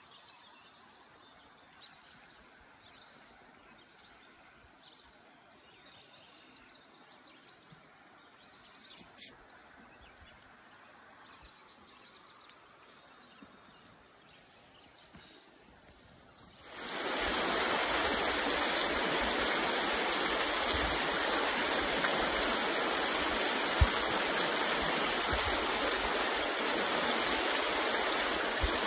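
Quiet creek-side ambience with faint bird calls, then about two-thirds of the way through a sudden switch to the loud, steady rush of creek water running over a riffle or rapid.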